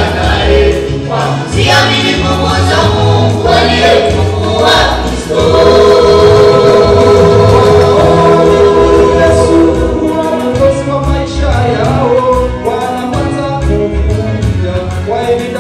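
Music: a choir of voices singing together over a backing with a steady bass line.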